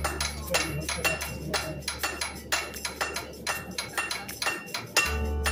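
Blacksmith's hammer blows ringing on an anvil in a steady rhythm, about three strikes a second.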